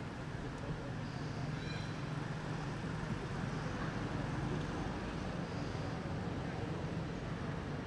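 Steady low background hum of a motor in the distance, with a few faint, short high chirps over it.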